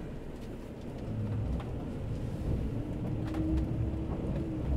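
Motorhome driving, heard from inside the cab: a steady low engine and road rumble with a faint engine hum that rises a little past the middle, and scattered light ticks.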